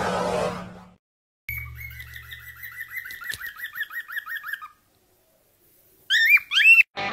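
Small pet parrot chirping in a quick run of repeated chirps, about four a second, then two loud calls that rise and fall in pitch near the end.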